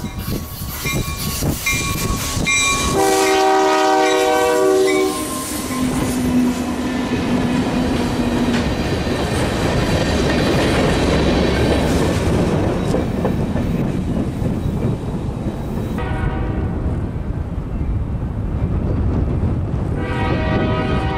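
Diesel freight locomotive's air horn sounding several blasts, ending in a long one about five seconds in, then the locomotives' engines passing close by, followed by the steady rolling rumble of covered hopper cars going by on the rails. Near the end another train horn sounds at a distance.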